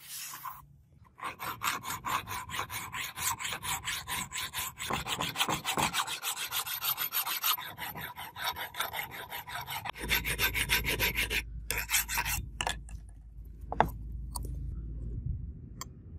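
Flat hand file scraping back and forth across a steel straight-razor blank held in a vise, in rapid, even strokes. In the last few seconds the strokes thin out under a low rumble, with a couple of sharp clicks.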